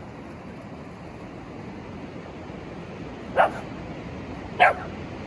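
A puppy barking twice, short sharp barks about three and a half and four and a half seconds in, alarmed by a driftwood log that looks like a face. A steady background rush runs under it.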